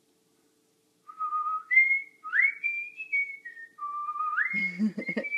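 A person whistling a tune: a string of clear notes that step up and slide between lower and higher pitches, starting about a second in. Near the end a lower, voice-like sound with a few knocks joins in.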